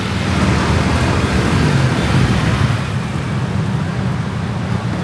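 Steady road and traffic noise from riding through city streets, a low engine and tyre hum with wind rushing over the microphone.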